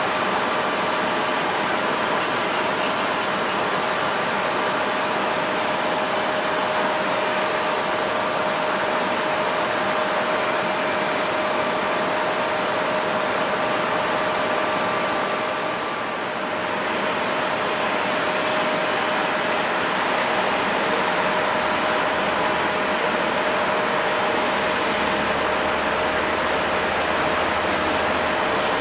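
Jet airliner engines running: a steady roar with a constant whine over it, easing off briefly a little past halfway.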